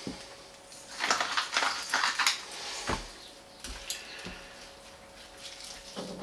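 Handheld spice grinder being twisted over a raw mutton roast: a dry crackling grind lasting about a second and a half, starting about a second in, followed by a few light knocks and clicks on the kitchen bench. A faint steady hum sits underneath.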